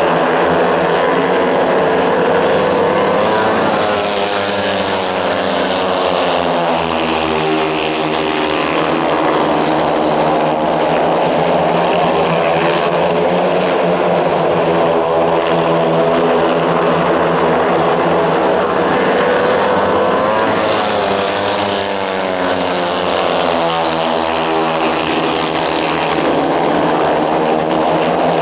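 Four 500 cc single-cylinder speedway motorcycles racing, their engines rising and falling in pitch again and again as the riders power down the straights and back off into the bends. The sound swells loudest twice as the pack passes close by.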